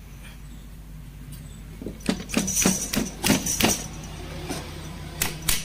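Metallic clicks and clacks from a hand-worked Mahindra Bolero Camper manual gearbox. The shift rails and selector forks are pushed through their ball-and-spring detents, taking the gearbox out of reverse toward neutral. A quick run of about half a dozen clacks starts a couple of seconds in, and two more come near the end.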